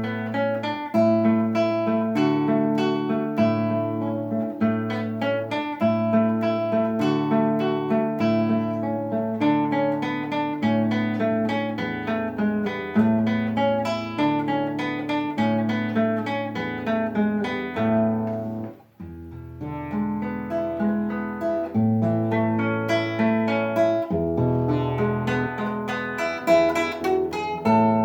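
Solo classical guitar playing an étude: a steady stream of plucked notes over a repeated bass note. The playing breaks off briefly about two-thirds of the way through, then resumes.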